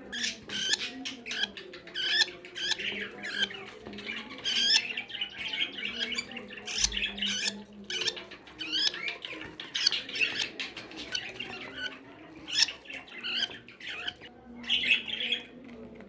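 Young budgerigars squawking, a rapid string of short, rasping calls several a second, tailing off near the end.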